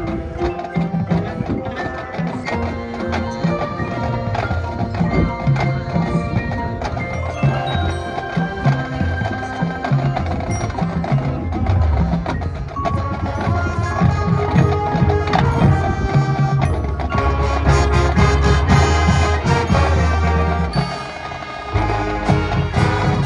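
High school marching band playing its competition show, percussion and pitched parts together. It swells louder in the second half, drops briefly near the end, then comes back in full.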